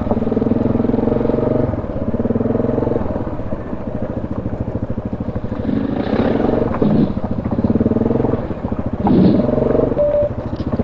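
ATV engine running at low trail speed, with the throttle easing off for a few seconds and then opening up again. A few short knocks and scrapes come in the second half.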